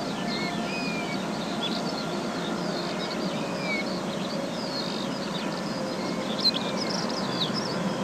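Many small birds chirping and singing at once, short quick notes and little whistled glides, over a steady rushing background noise. One note about six and a half seconds in stands out louder than the rest.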